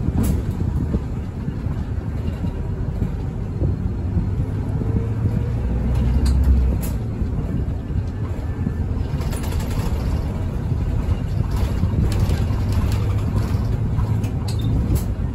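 Cabin noise inside a moving city bus: a steady low engine and road rumble that swells slightly about six seconds in, with occasional light clicks and rattles.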